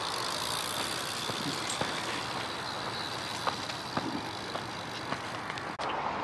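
A bicycle rolling along the trail: a steady rolling noise of its tyres, with a few faint ticks. The noise breaks off abruptly near the end.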